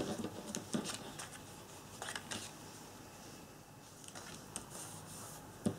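Faint scratching and rustling of a pen-style craft knife cutting card stock and the card being handled, with a few short sharp clicks, the sharpest at the start and near the end.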